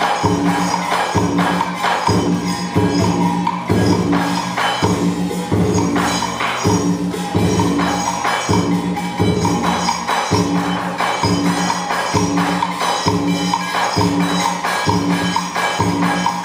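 Traditional Vietnamese percussion music for a water puppet show. A deep drum beats a steady, even pulse a little over once a second, with lighter clicks and clatter of other percussion between the strokes.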